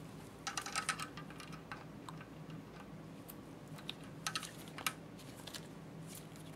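Faint, light clicking and tapping of small metal parts being handled on a Haag-Streit slit lamp's rotary diaphragm selector as its stop and screw are adjusted by hand. The clicks come in two short clusters, about half a second in and again about four seconds in.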